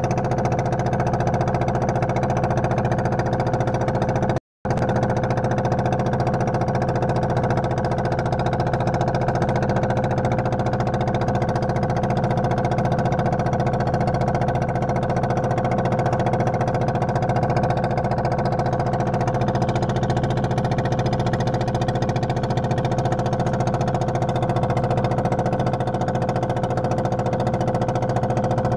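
Steady, unchanging engine hum with a few held tones, cutting out for a moment about four and a half seconds in.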